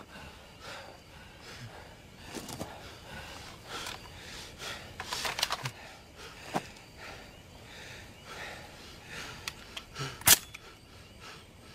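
Sparse action-film sound effects: scattered soft clicks and rustles, a quick cluster of sharp clicks about five seconds in, and one loud, sharp crack about ten seconds in.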